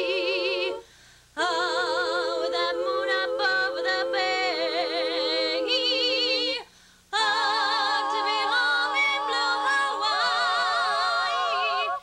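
Women's a cappella vocal group singing held chords in close harmony with wide vibrato and no clear words. There are two brief breaks, about a second in and again about seven seconds in.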